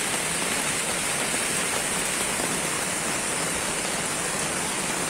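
Steady rush of a swollen, muddy river in flood, pouring through the remains of a washed-out bridge.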